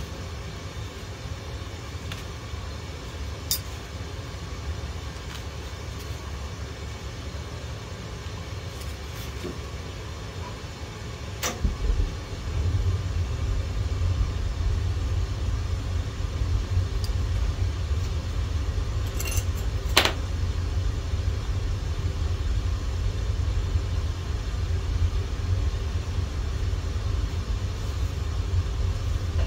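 A steady low rumble that gets louder about twelve seconds in, with a few sharp clicks.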